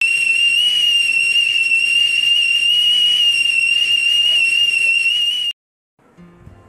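Stovetop kettle whistling at the boil: one steady, high whistle over a hiss of steam, cut off abruptly about five and a half seconds in. Faint music starts just before the end.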